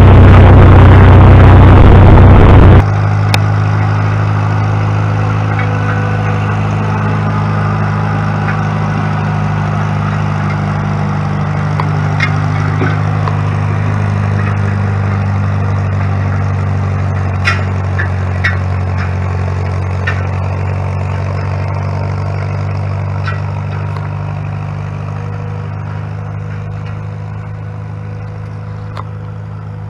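An engine running at a steady speed. It is very loud and harsh for the first few seconds, then changes abruptly to an even hum that slowly fades, with a few light ticks.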